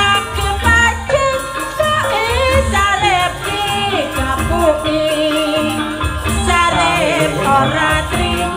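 Javanese campursari music: a woman singing with gliding, bending notes over a steady low drum beat and rattling percussion.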